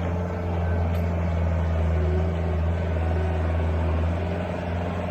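Skid steer loader engine running steadily under work, a constant low drone.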